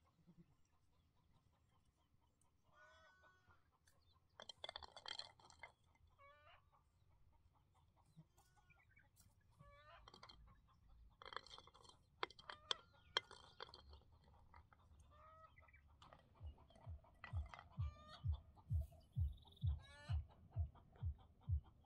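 Faint chickens clucking off and on, with two busier bursts of calls. In the last five seconds a regular low thudding sets in, about two thuds a second, and becomes the loudest sound.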